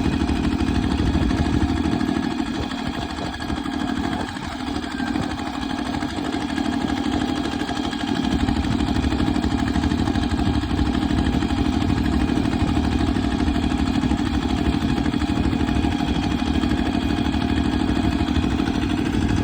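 An engine running steadily at an even speed, a little quieter for a few seconds near the start.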